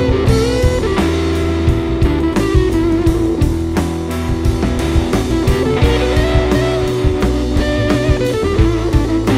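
Blues-rock band playing an instrumental passage with no vocals: electric guitars over a drum kit, a lead guitar line bending notes up and down, with low bass notes under it.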